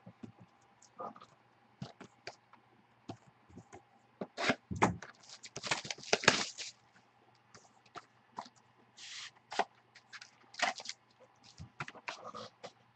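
A trading-card box and its packs being opened and the cards handled: scattered clicks and rustles, with a longer burst of tearing and crinkling a little before the middle and another short one about two-thirds through. A faint steady low hum runs underneath.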